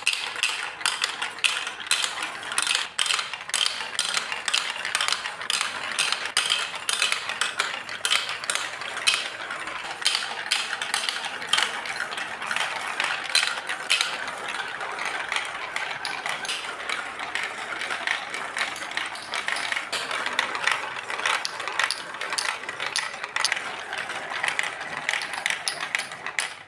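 Plastic balls rolling and clattering down a Lego Duplo building-block marble run's plastic chutes and funnel: a continuous rattle of quick clicks with frequent louder knocks.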